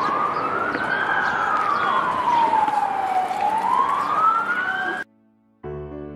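Emergency vehicle siren wailing over city street noise, its pitch slowly rising, falling and rising again. It cuts off suddenly about five seconds in, and after a short silence soft piano music begins.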